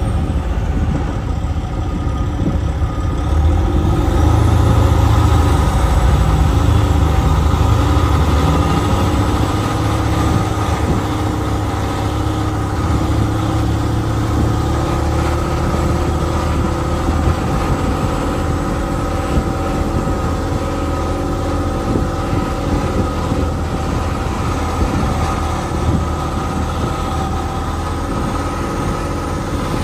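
Log truck's diesel engine running steadily, heard from inside the cab as the truck rolls slowly along. The engine note rises a little and gets louder about four seconds in, then settles.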